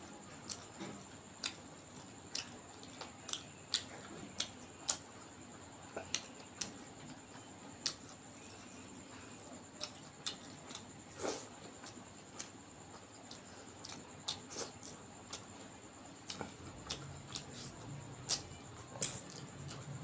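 Close-miked eating: irregular wet mouth smacks and clicks from chewing duck curry and rice, a few a second, over a faint steady high-pitched whine.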